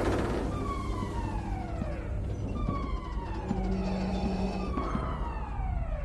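A series of siren-like wails, about one each second, each sliding down steadily in pitch and overlapping the next, over a low steady hum.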